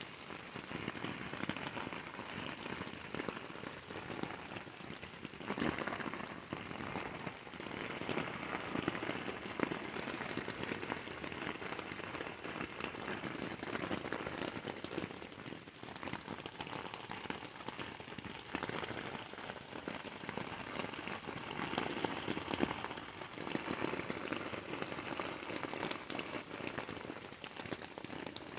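Rain falling on a tent's fabric, heard from inside the tent: a dense, uneven patter of drops that swells louder a few times.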